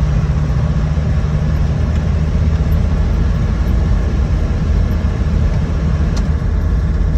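Cab of a 2004 Land Rover Defender 90 TD5 on the move: its five-cylinder turbo-diesel engine and the road noise make a steady low drone, with one faint click about six seconds in.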